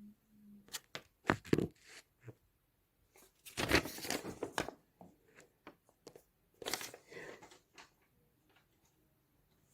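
Paper being handled and crackling: a few sharp crackles, then a longer rustling burst about three and a half seconds in and another about seven seconds in.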